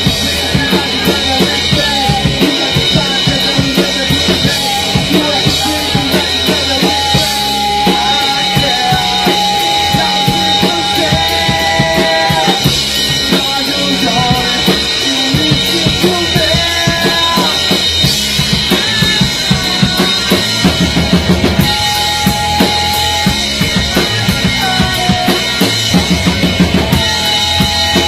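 Rock band demo recording playing a passage without transcribed vocals: a drum kit with kick and snare drives a steady beat under bass and long held melody notes.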